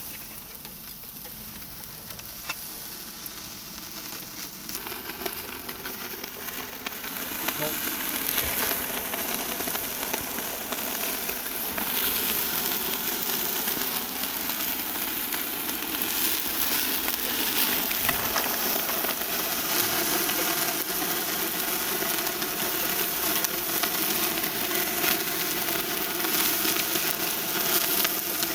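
Duck meat skewers sizzling over a charcoal grill, the sizzle growing louder about seven seconds in and staying steady.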